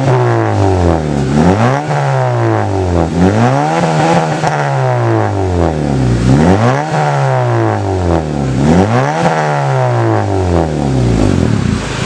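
Honda Civic FD's exhaust through an HKS burnt-tip axle-back muffler, the engine revved again and again so that the note climbs and falls several times.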